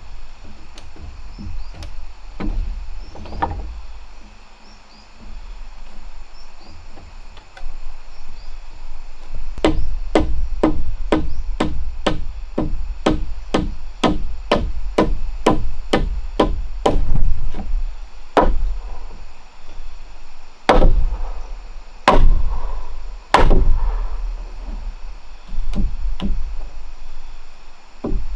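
Heavy wooden mallet pounding a timber rail, wood on wood: a quick, even run of blows at about two to three a second, then a handful of slower, harder blows.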